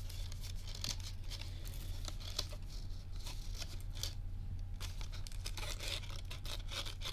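Foil Pokémon Scarlet ex booster packs crinkling and rustling as hands dig through the cardboard booster box, a run of short crackles and scrapes.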